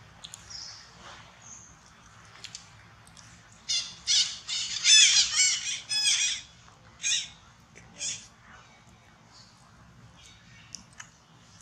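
A quick series of loud, high-pitched squawking calls, each rising and falling in pitch, starting about four seconds in, followed by two single calls a second apart.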